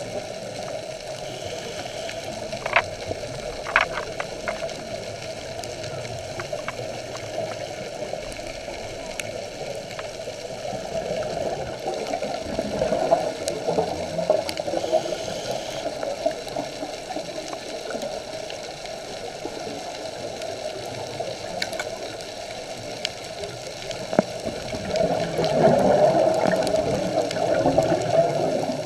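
Muffled underwater sound picked up through a camera's waterproof housing on a scuba dive: a steady gurgling wash of water and exhaled bubbles that swells louder twice. A few sharp clicks come around three to four seconds in.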